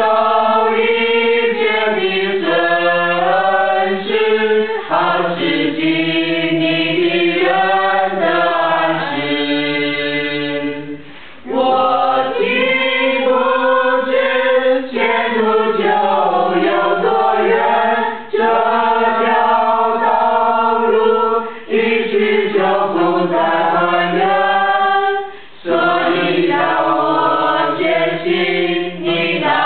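A choir singing a Chinese-language song in sustained, several-part phrases, with short breaks between phrases and a longer pause about eleven seconds in.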